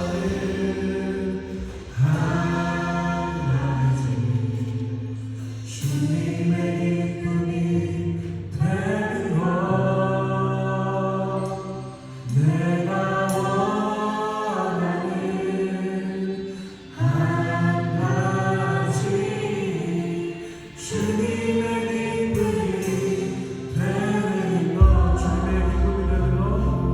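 A worship team singing a Korean praise song in several voices over keyboard accompaniment, in sung phrases of about four seconds each. A deep bass note comes in near the end.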